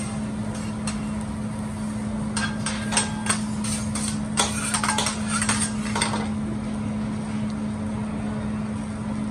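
Metal spatula and fork clacking and scraping on a steel teppanyaki griddle as vegetables are tossed and chopped, in quick clusters of sharp clicks that thin out after about six seconds. A steady low hum runs underneath.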